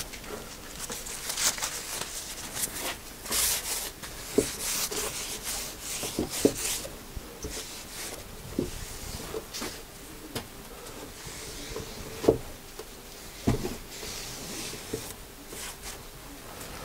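A cloth rubbing along a wooden board, wiping off glue squeeze-out, in irregular strokes, with a few short knocks of things set down on the bench.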